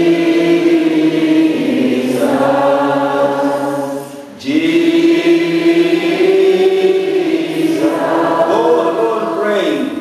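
Voices singing a slow worship chant in long held notes, with a short break about four seconds in before the next phrase.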